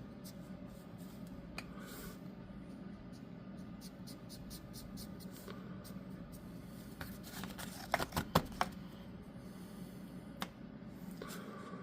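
Faint rubbing and scratching of pan pastels being worked onto a model part, with scattered small handling clicks and a quick run of four sharp taps about eight seconds in, over a low steady hum.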